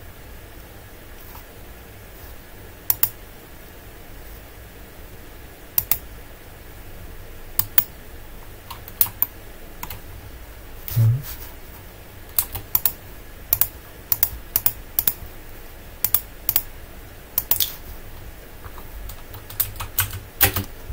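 Sharp clicks of a computer mouse and keyboard, scattered singly and in quick pairs, over a low steady hum; one brief low thump about halfway through.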